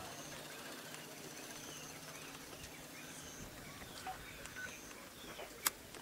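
Birds calling with short, repeated high whistles and scattered chirps over a faint background hiss, with one sharp click near the end.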